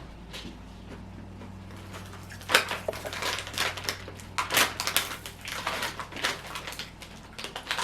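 Crunching and chewing of barbecue potato chips close to the microphone: a quiet stretch, then from about two and a half seconds in a run of irregular, loud crunches.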